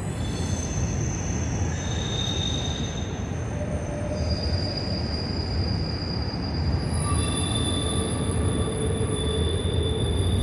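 Freight train cars rolling past, their wheels squealing in several high, steady tones that come and go and change pitch, over a low rumble.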